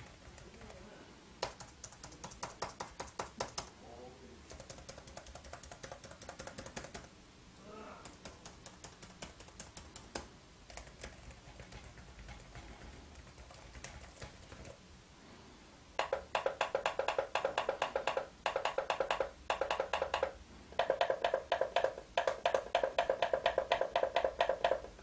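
Typing on the chiclet keyboard of an MSI GE62 2QF Apache Pro laptop: light, scattered runs of key clicks at first, then about two-thirds of the way through fast, louder bursts of rapid keystrokes with short pauses between them.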